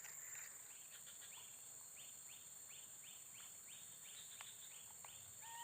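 Faint forest ambience: a steady high insect drone with a short chirp repeating about three times a second. A single clear whistled note, a bird call, starts right at the end.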